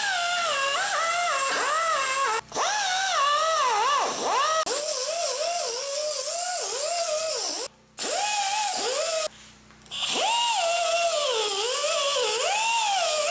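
Air-powered wire brush tool whining as it scrubs a welded steel frame. Its pitch keeps dipping as it is pressed into the work and rising again as the load comes off, and it stops three times, briefly each time.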